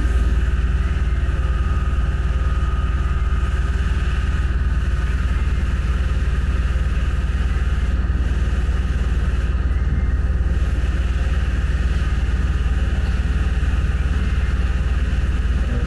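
A machine running steadily at constant speed, giving a deep, even hum.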